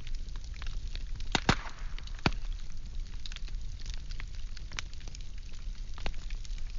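Firewood logs burning: irregular crackles and pops over a low steady rumble of the flames, with two louder pops about a second and a half and two seconds in.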